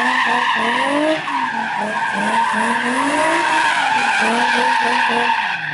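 A car doing donuts or a burnout, its tyres squealing steadily while the engine revs rise and fall over and over. The spinning tyres are throwing up a thick cloud of smoke.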